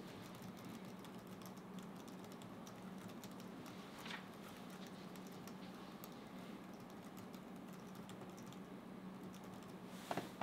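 Typing on a laptop keyboard: a quiet, irregular run of key clicks over a steady low hum. A couple of louder knocks come just before the end.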